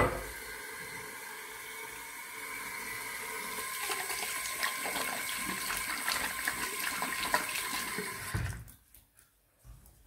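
A bathroom sink tap running, with splashing as a hand is rinsed under the stream; the water is shut off abruptly about eight and a half seconds in. A sharp knock at the very start.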